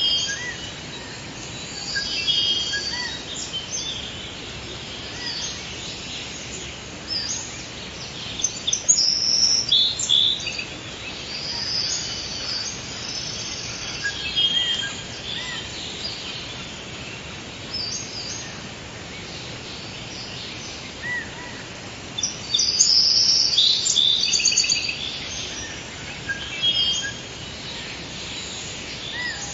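Several forest birds singing and chirping in short, overlapping high phrases and trills, with busier bursts of song about a third of the way in and again near the end, over a steady background hiss.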